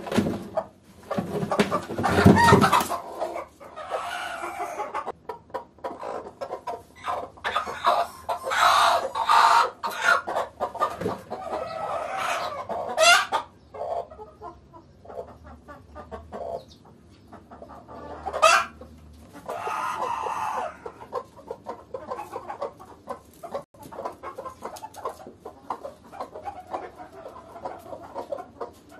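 Chickens clucking and calling in irregular bursts, busiest in the first twenty seconds and quieter later. About two seconds in comes the loudest moment: a rustle and bump as a hen is set down onto eggs in a plastic nest box.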